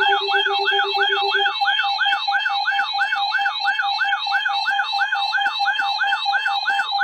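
Electronic emergency alert siren, a warbling tone sweeping up and down about three to four times a second over a steady tone. A lower steady tone drops out about a second and a half in. It is an alarm sounding ahead of an emergency alert broadcast.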